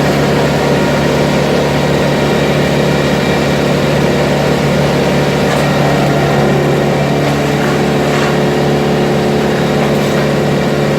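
A large engine running steadily at a constant speed, with a slight change in its tone about halfway through.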